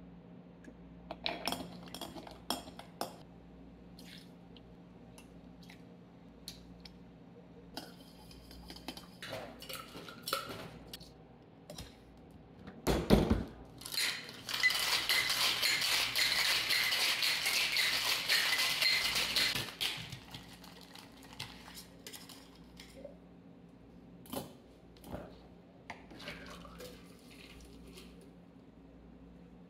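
Ice cubes clinking into a stainless steel cocktail shaker tin, then a heavy knock. That is followed by about five seconds of hard shaking, the ice rattling loudly inside the metal shaker, and then scattered clinks of the shaker and strainer being handled.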